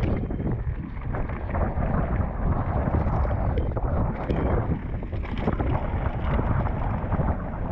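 Wind buffeting a GoPro's microphone at speed, with many small clicks and rattles throughout, typical of a mountain bike rolling over a rough dirt trail.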